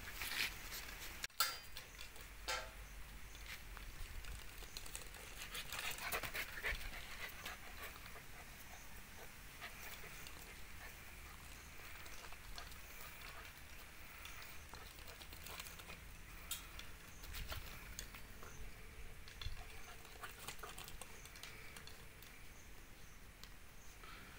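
Belgian Malinois puppies playing: panting and scuffling on dirt, with a sharp knock about a second in.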